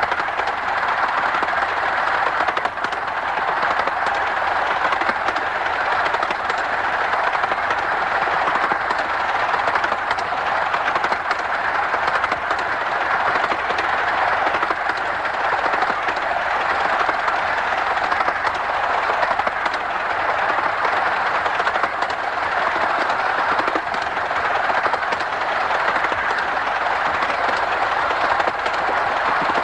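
Romney, Hythe & Dymchurch Railway No.5, a 15-inch gauge 4-8-2 miniature steam locomotive, running steadily along the line: an even, unbroken rush of the engine and wheels on the track.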